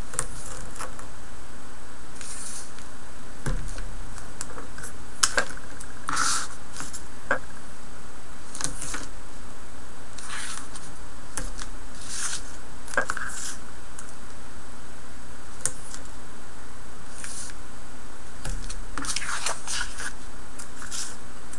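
Double-sided score tape being pulled off its roll and its liner peeled, with scattered short crackling and scratching sounds as it is laid and pressed along the cardstock edges.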